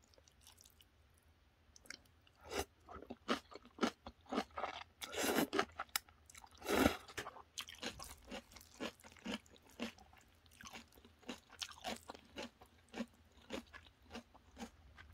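Close-up chewing of a mouthful of jjajangmyeon with cabbage kimchi, the kimchi giving many short crisp crunches. It starts after about two seconds and is loudest about five to seven seconds in.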